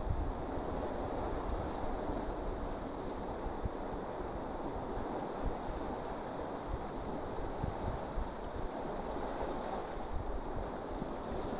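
Sea surf washing and breaking over shoreline rocks, a steady rush of water, with wind buffeting the microphone in low rumbles.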